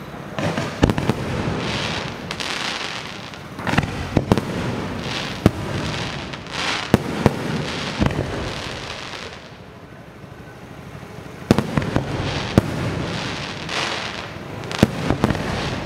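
Close-range electronically fired fireworks: hissing fountains and rising shells with sharp bangs of bursting shells every second or two. The noise eases into a brief lull about ten seconds in, then picks up again with more bangs.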